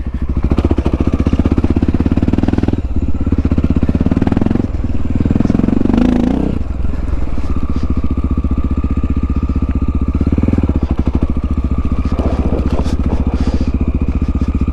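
A 1997 Honda XR650L's single-cylinder four-stroke engine running under way on a dirt trail. It thumps steadily, dips briefly twice in the first five seconds, and pulls louder for a moment around the middle.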